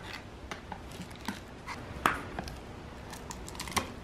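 Metal lid being pried off a gallon paint can: a series of small metallic clicks and knocks, the loudest about two seconds in and again near the end.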